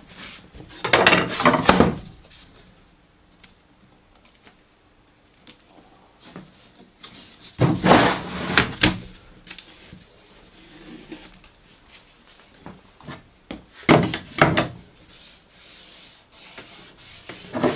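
MDF board and a thin wooden strip sliding and rubbing across a workbench top as they are shifted into place, in three scraping bursts of about a second each with quieter handling between.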